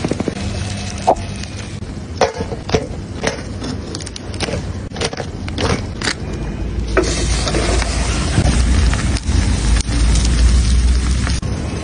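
King crab sizzling on a wire grill over charcoal, with sharp crackles and clicks scattered between about one and seven seconds in. A steady low rumble runs underneath and grows stronger in the second half.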